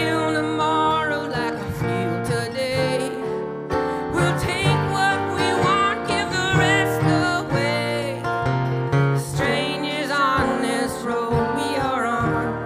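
Live folk band music with acoustic guitar and a wavering melody line over it.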